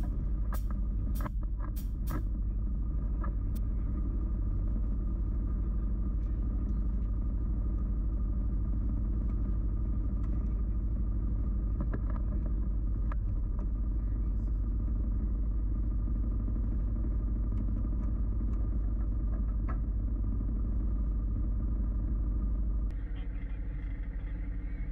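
Four-seater UTV engine running steadily under way, with a few sharp knocks in the first two seconds; the sound changes abruptly about two seconds before the end.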